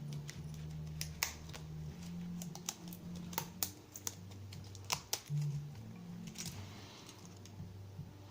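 Irregular small clicks and taps of a pin-tumbler lock's metal parts being handled while it is taken apart, a few of them sharper and louder than the rest. A steady low hum runs underneath.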